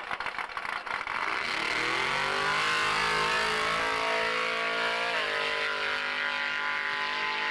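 Drag car's engine launching off the start line. A pulsing idle gives way, about a second in, to revs climbing steeply for several seconds. The revs drop sharply at a gear change just after five seconds, then climb again as the car pulls away down the strip.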